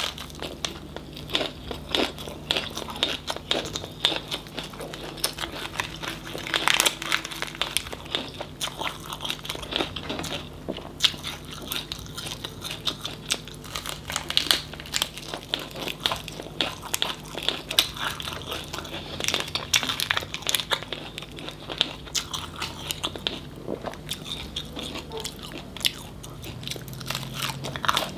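A person biting into and chewing a fresh rice-paper roll of lettuce, herbs and whole stir-fried tôm nhủi (tiny crustaceans). It gives a continuous run of small crunchy clicks as she chews.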